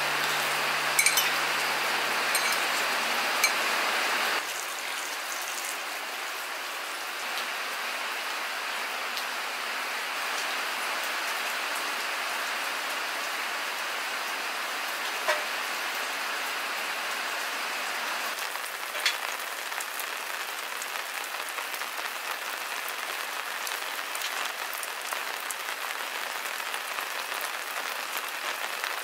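Steady rain falling, an even hiss, with a few light clicks. For about the first four seconds the hiss is louder, with a low hum and some sharp clicks, before it drops to a softer, steady patter.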